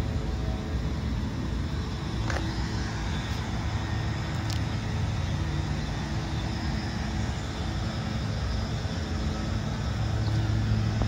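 Steady city traffic rumble with a low engine hum, stronger near the start and end, and two faint clicks early on.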